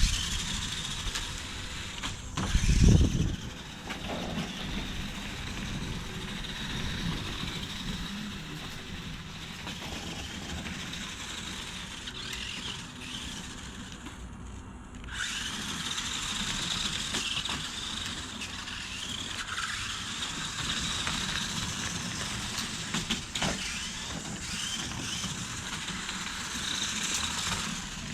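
1:12 scale RC monster truck driving: its electric motor and gears whirring, with tyre and chassis noise. There is a heavy thump about three seconds in, and the whirr breaks off briefly about halfway through before starting again.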